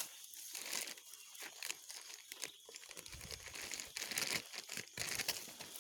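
Irregular rustling and crackling, made of many small crackles, with a low rumble joining in from about three seconds in.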